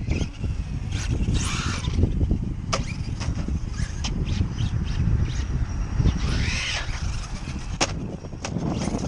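Traxxas Stampede 2WD RC truck with a brushless motor driving on concrete, with two short hissing scrubs of its tyres and several sharp clacks from the truck hitting and bumping over the surface, over a steady rumble of wind on the microphone.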